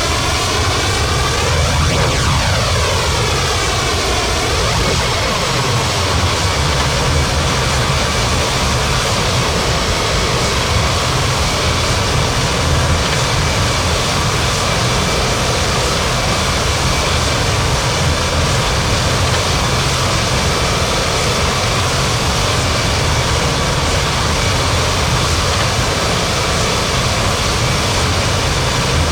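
Jet engines of an Airbus A330-300 running loud and steady as the airliner moves past, with a sweeping, phasing whoosh in the first few seconds.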